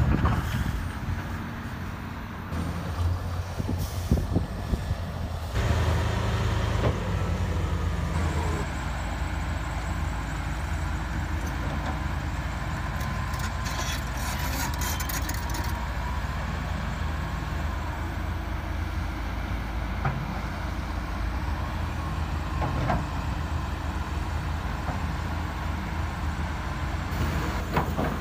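Diesel engines of earthmoving machinery running with a steady low drone, mainly a LiuGong crawler excavator working a sandy slope. Scattered short clanks and a brief hiss about halfway through.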